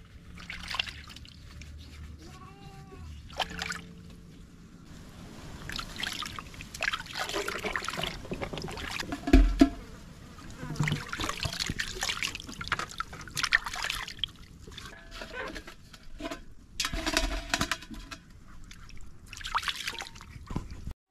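Water splashing and dripping as pieces of catfish are handled and rinsed by hand in a steel basin of water, in irregular bursts. A dull thud about nine seconds in as a piece goes into an empty metal basin.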